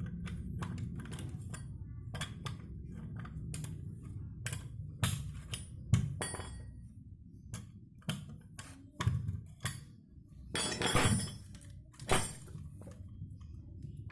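Metal tools and parts of a Honda Vario 110's rear CVT pulley clinking and knocking on a workbench while the pulley is taken apart: a string of separate sharp clanks, with a longer scraping burst near the end. A steady low hum runs underneath.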